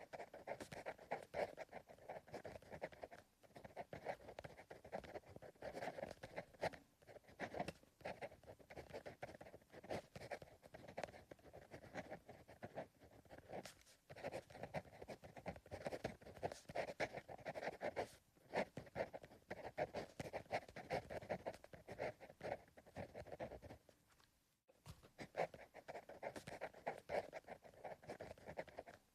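Pencil writing on paper: continuous scratchy strokes, broken by a few brief pauses as the pencil lifts.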